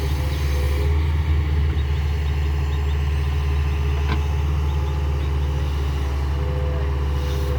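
Tata Hitachi excavator's diesel engine running steadily with a deep, even drone. There is a single brief knock about four seconds in.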